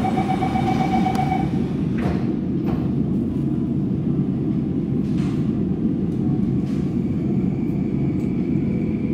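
Bombardier C951 Downtown Line metro train heard from on board, running with a steady low rumble. A high pulsing tone stops about a second and a half in, a few short knocks follow, and a faint motor whine comes in near the end.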